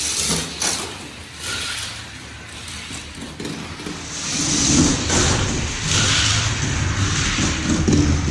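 Hot Wheels die-cast cars rolling and rattling down a plastic racing track, louder about halfway through.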